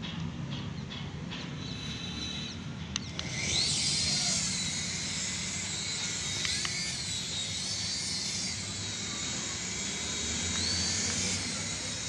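Toy remote-control helicopter's small electric rotor motors spinning up about three seconds in, then a steady high whirring hiss with a whine that wavers and rises in pitch now and then as it flies. Before the spin-up only a low hum and a few faint ticks.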